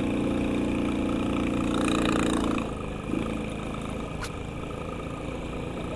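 Sanya X50 110cc motorcycle engine running at a steady speed over road and wind rumble. Its note drops away about halfway through, leaving a lower rumble, and there is a single click later on.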